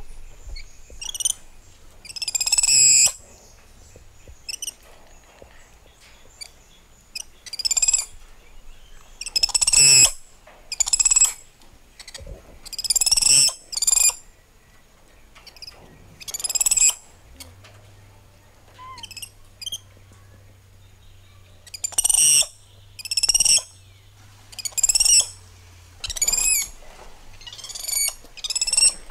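Repeated shrill, high-pitched animal calls, each short and often falling at the end, coming every one to two seconds. A faint low hum sits underneath through the second half.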